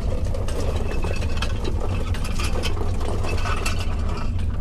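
A truck's engine idling steadily, with scattered light rattles and clicks over it.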